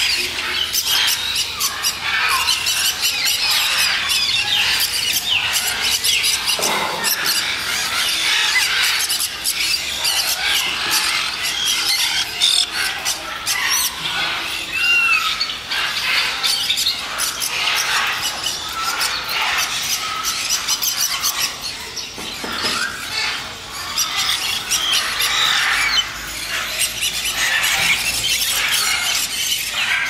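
A group of black-headed caiques squealing and screeching over one another without a break: many high-pitched calls overlapping.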